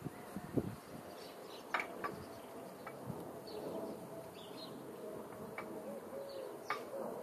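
A few sharp clicks and knocks from hand work on the front of a tractor engine under repair, with short bird calls in the background.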